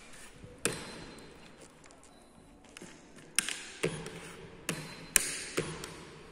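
Plastic draughts pieces knocking onto the board and the buttons of a digital chess clock being slapped in a fast game: about six sharp knocks, one about half a second in and the rest in the second half, with fainter taps between.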